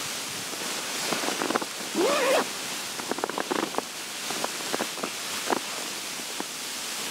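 Steady hiss like wind, with scattered sharp clicks and a brief, bending, voice-like sound about two seconds in.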